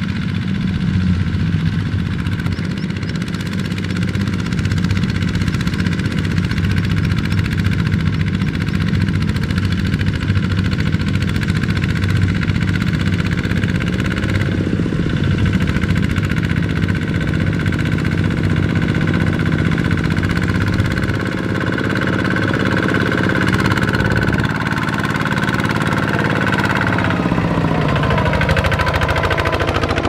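Single-cylinder diesel engine of a two-wheel walking tractor running steadily under load as it pulls a loaded trailer through a muddy rice field. Its pitch drops near the end.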